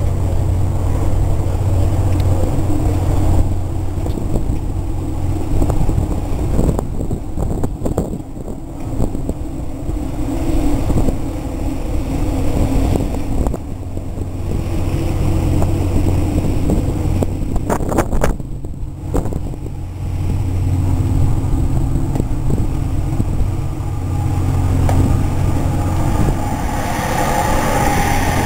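Wind buffeting the microphone on the open deck of a moving ferry: a loud, rough rushing over a low steady hum. It eases off for a few seconds twice.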